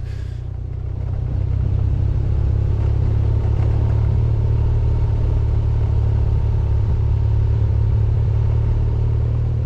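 BMW R1200GS Adventure's boxer-twin engine running steadily while the bike rides along, getting louder over the first second or so.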